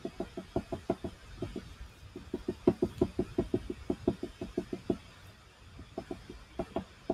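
Oil pastel stick tapped repeatedly on paper to stipple dots of colour: a quick run of light taps, several a second, with a pause of about a second past the middle.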